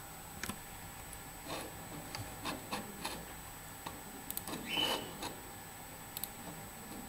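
Scattered faint clicks and soft rustling: a computer mouse being clicked and handled at a desk.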